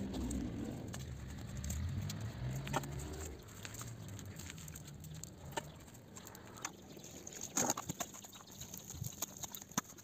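Small twig fire crackling, with scattered sharp snaps and clicks of dry sticks being handled and fed in, the loudest cluster about seven and a half seconds in. A low hum lies under the first three seconds.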